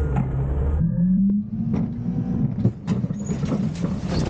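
Front-loader garbage truck's engine and hydraulics working as its forks tip a dumpster over the hopper: the engine note rises about a second in and holds steady. A run of knocks and clatter follows as the trash falls into the hopper.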